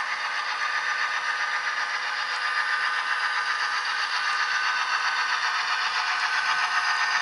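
Soundtraxx Tsunami sound decoder in an H0 model F7 diesel locomotive playing its diesel engine sound through the model's small speaker: a steady, thin, rattly running sound with no bass, slowly getting louder.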